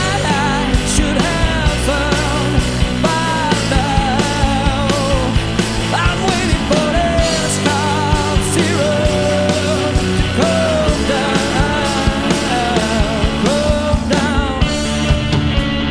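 Rock band playing live with no lyrics sung: drums and bass under a wavering lead melody with vibrato.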